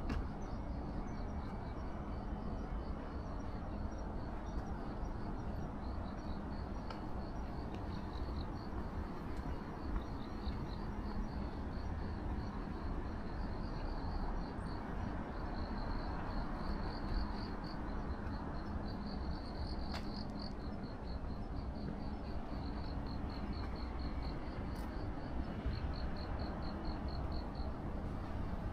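Crickets chirping in runs of quick, high-pitched pulses, over a steady low rumble.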